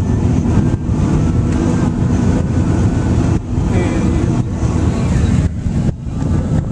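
Loud, steady road and wind noise inside a moving car's cabin, mostly low rumble.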